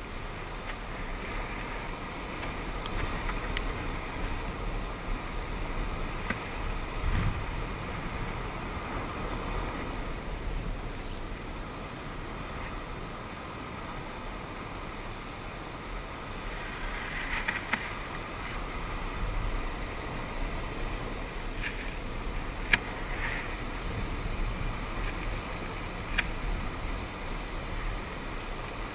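Ocean waves washing in a steady roar of surf that swells twice, with a low thump about a quarter of the way in and a few sharp clicks near the end.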